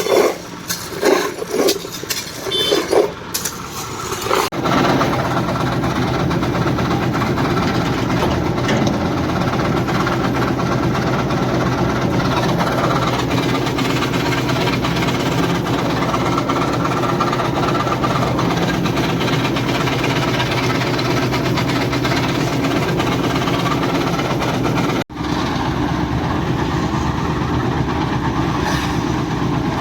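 After about four seconds of irregular noise, a machine engine comes in and runs steadily and loudly at an even pitch, typical of a concrete mixer at a slab pour. It cuts out for an instant about 25 seconds in, then runs on the same.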